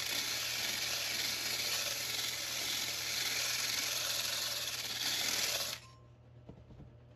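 Cordless drill running at speed, spinning a homemade sandpaper-on-threaded-rod tool inside a rusty steel hitch receiver tube: a steady scratchy hiss of abrasive scouring rust off the inside walls. It cuts off suddenly about six seconds in as the drill stops and the tool comes out.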